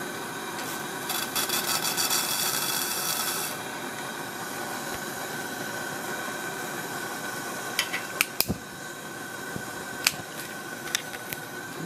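Steady hiss of a lit Coleman 200A pressure lantern burning. About a second in comes a scratchy rubbing for two seconds, and later a few sharp metallic clicks as a second lantern's frame and generator are handled.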